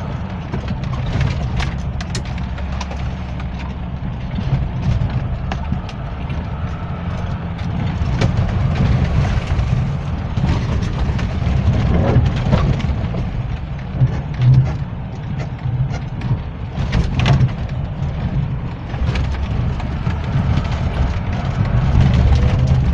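Mitsubishi Pajero's engine running under load, heard from inside the cab, with a low steady drone and occasional knocks and clatters as the vehicle bounces over rough, muddy off-road ground.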